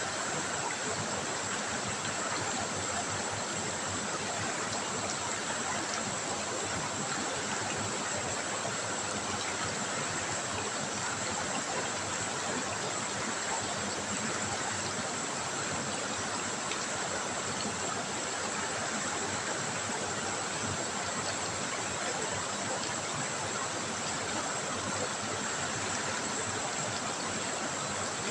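River water trickling, a steady, even rush that keeps up without a break.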